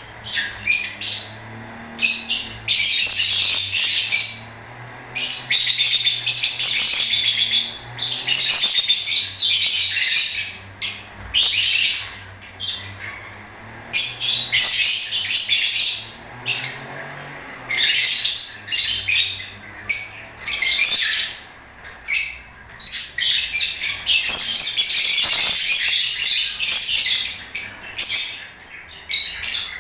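Lovebirds singing: shrill, high-pitched chattering in bouts of one to a few seconds, with short gaps between.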